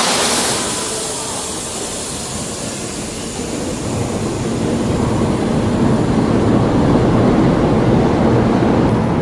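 A big old engine running, opening with a short burst of hiss. About four seconds in its sound builds up and then holds steady.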